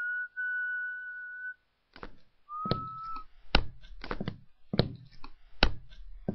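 A person whistling a held note that stops about one and a half seconds in. It is followed by a series of sharp knocks, roughly one every three-quarters of a second, with a brief whistled note early among them.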